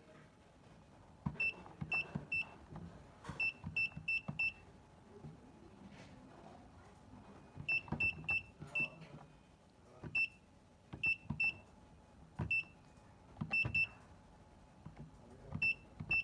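Keypad of an STS prepaid electricity meter beeping once with each key press as a 20-digit recharge token is entered. Each press gives a short high beep with a soft click, in irregular runs of one to four, about twenty in all.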